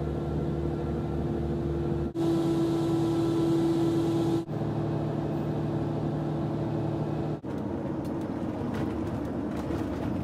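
Steady drone of a car ferry's engines heard on its open vehicle deck, a low hum with a held tone, changing abruptly about two and four and a half seconds in. Over the last few seconds it gives way to a car's engine and road noise with a few light clicks.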